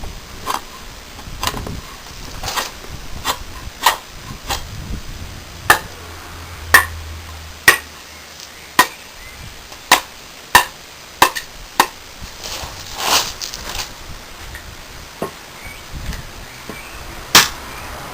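A freshly sharpened Martindale No.2 golok machete chopping in an edge test: about seventeen sharp chopping strokes at an uneven pace, some much louder than others.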